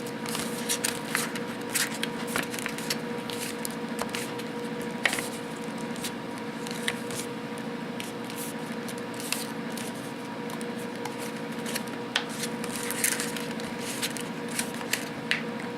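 Thick paper being folded and creased by hand, with irregular crackles and rustles as the edges are pressed down. A steady hum runs underneath.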